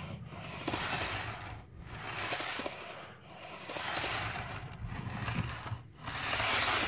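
Model railway dummy HST car pushed back and forth by hand along freshly ballasted track, its wheels rolling on the rails with a rushing rumble that swells and fades about five times. The noise is much louder on the glued-down ballast than on the underlaid track, partly perhaps from leftover ballast grains interfering with the wheels.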